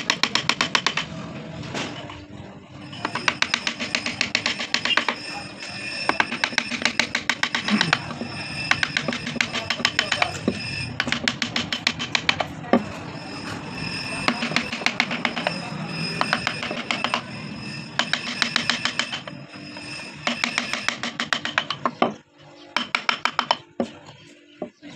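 Hand carving gouge cutting into a wooden relief panel: rapid runs of small clicks and scrapes as the edge bites into the wood, in spells of several seconds with short pauses, dying away near the end.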